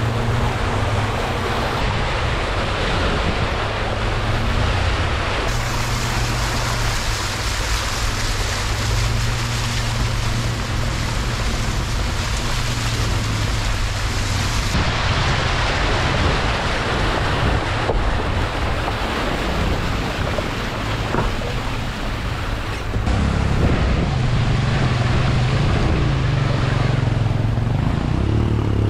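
Small motor vehicle's engine humming as it drives through floodwater, with water splashing and rushing around the wheels and wind buffeting the microphone.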